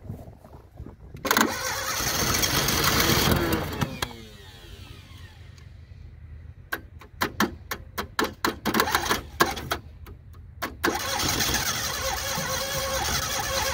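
A Fiat 127's four-cylinder engine being started: a few seconds of rough running, then a string of irregular separate pops, then steady running again for the last few seconds. It is starting on a faulty carburettor and reacts only to pumping.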